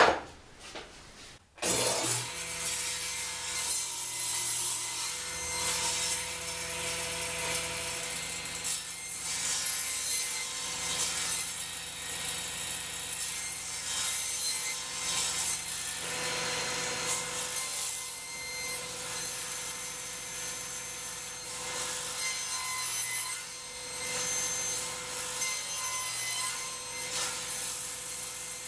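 Delta table saw running steadily while a small crosscut sled carries a wooden board through the blade, cutting off short blocks one after another. The cutting noise swells several times over the steady run of the saw, which starts up suddenly about a second and a half in.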